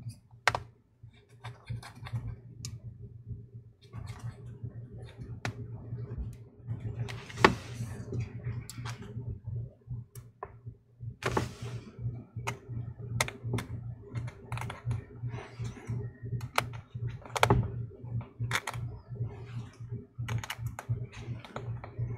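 Irregular small clicks and taps of a precision screwdriver, tiny screws and a small metal connector bracket being handled on the opened MacBook Air's internals, over a low steady hum.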